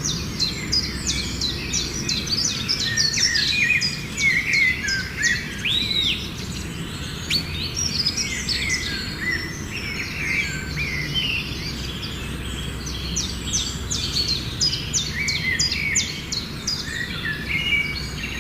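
Many birds chirping and singing at once, a dense chorus of rapid short chirps and whistled notes, over a steady low background rumble.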